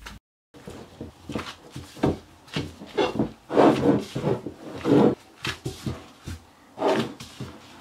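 Gloved hands mixing and kneading wheat-flour tortilla dough on a ceramic plate, in a run of irregular strokes.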